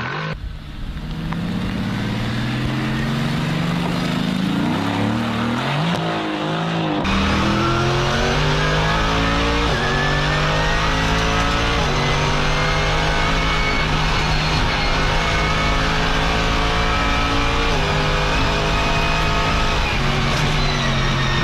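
Race-car engine accelerating hard through the gears. The pitch climbs, then drops back at each shift, three times. A louder, fuller engine sound comes in about a third of the way through.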